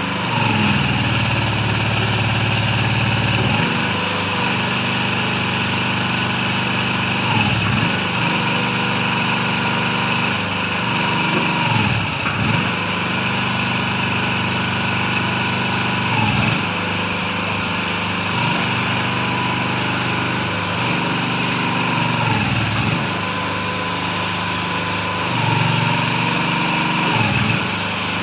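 Small engine of a portable concrete mixer running steadily, its speed dipping briefly and recovering every few seconds.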